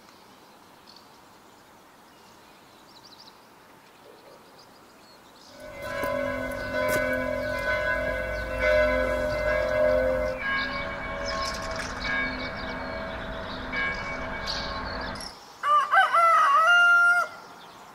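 A bell ringing steadily from about five seconds in, stopping abruptly some ten seconds later, over faint bird chirps. Near the end a rooster crows loudly once.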